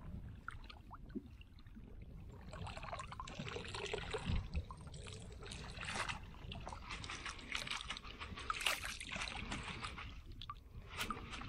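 A wet plastic bag crinkling on and off as it is pulled out of the water and lifted, with water dripping and splashing off it.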